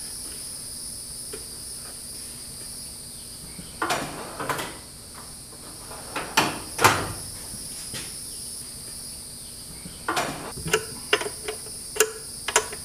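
Steel tool-chest drawers being pulled open and pushed shut, with a few sharp knocks and clatters, the loudest about halfway through. Near the end a quick run of small metallic clicks and taps as a tool tightens the nut on a welder's grounding post. A steady high hiss sits underneath throughout.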